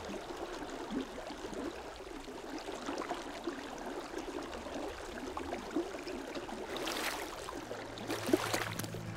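Slow river water flowing gently, with faint trickling and gurgling. Two brief swishes come near the end.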